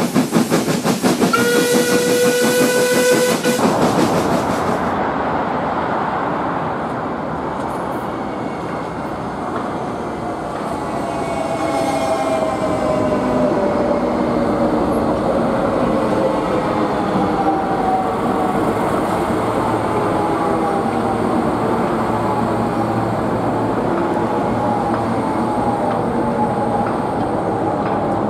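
A steam locomotive working with rhythmic chuffs, its whistle blowing for about two seconds. Near four seconds this gives way to a Docklands Light Railway train running past on elevated track, a steady rumble with an electric motor whine that slowly falls in pitch.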